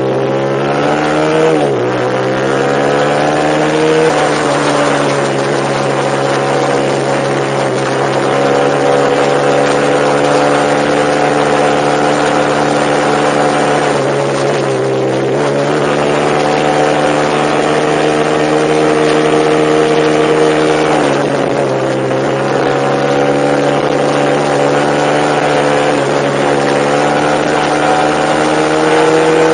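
A vehicle engine running steadily under way. Its pitch dips and climbs back several times as the throttle or gear changes.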